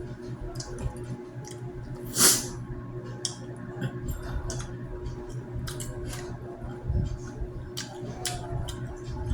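A person eating: scattered small clicks and mouth smacks of chewing and handling food, with one louder rustle about two seconds in, over a steady low hum.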